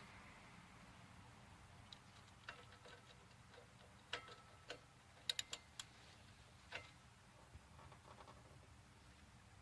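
Faint, irregular clicks and ticks of a 3/8-inch-drive ratchet and 7 mm hex socket working loose the brake caliper mount screws, with a quick cluster of clicks about halfway through.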